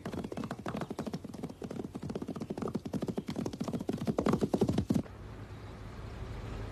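Galloping horse hoofbeats, a fast run of clops growing louder, cut off abruptly about five seconds in; a steady low rumble follows.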